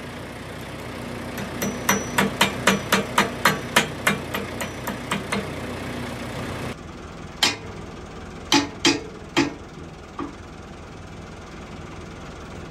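A hand hammer strikes the steel pins and links of an excavator bucket joint. The metal blows come in a quick run of about a dozen, roughly three a second, then four more spaced apart. An engine idles steadily underneath.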